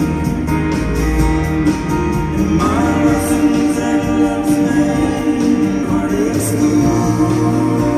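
Live band music with singing, heard from the crowd in an arena: vocals with backing harmonies over keyboard and drums, with a long held note.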